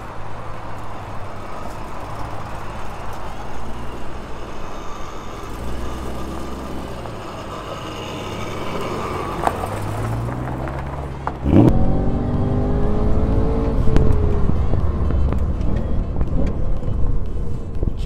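A car engine running steadily. About eleven and a half seconds in it turns suddenly louder as it revs: the pitch rises for a couple of seconds, then holds.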